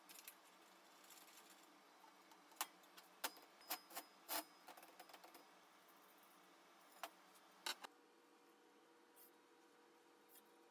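Light metallic clinks and knocks as steel plate pieces and a stainless mesh basket are handled and set down on a perforated steel welding table: about eight sharp hits between two and eight seconds in, over a faint steady hum.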